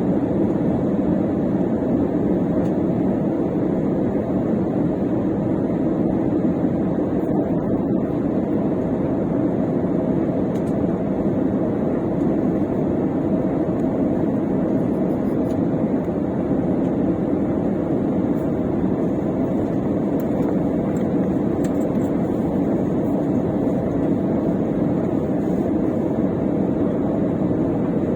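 Steady engine and airflow noise of a jet airliner inside the passenger cabin, heard during the descent toward landing.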